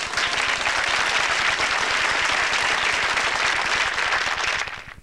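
Studio audience applauding, a dense steady clapping that dies away near the end.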